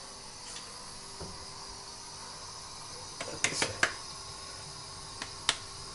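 Oil heating in a kazan, giving a faint steady hiss. A few sharp clicks and knocks come about three and a half seconds in and once near the end.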